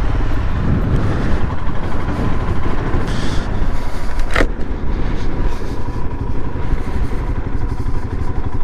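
Royal Enfield Himalayan's 411 cc single-cylinder engine running as the motorcycle is ridden over a stony off-road track, with one sharp click about four and a half seconds in.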